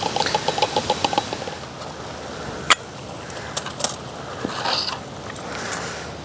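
Camp cookware being handled. A quick run of light ticking taps, about ten a second, comes first as instant coffee is tapped into a small glass cup. Then a sharp metallic clack and a few lighter clicks follow as the lid comes off the blackened camp pot and the pot is lifted off its stove, all over a steady background hiss.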